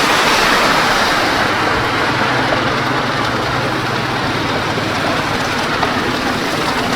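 Steady city street noise, a continuous rush of traffic, with a low vehicle hum in the middle.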